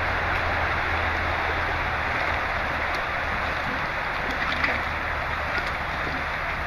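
Jeep Wrangler's engine idling while the vehicle sits buried to the hood in mud: a low steady hum under a steady hiss.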